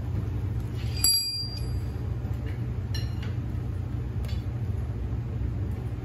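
Two sharp metal-on-metal clinks with a brief ringing, the louder about a second in and a fainter one about three seconds in, over a steady low hum.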